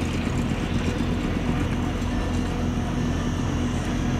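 Steady low drone of a river cargo barge's diesel engine running as the barge passes close by, with a held hum under it.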